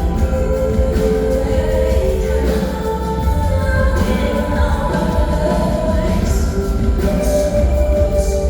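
Live concert music: a sung melody with long held notes over a strong, steady bass.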